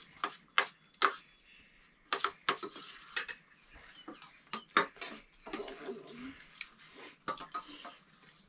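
Dishes and eating utensils clinking and scraping irregularly during a meal: a dozen or so sharp, uneven clinks.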